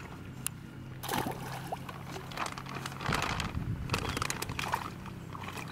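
Water sloshing and splashing in short bursts over a steady low mechanical hum, typical of fish being lifted out of water in a boat.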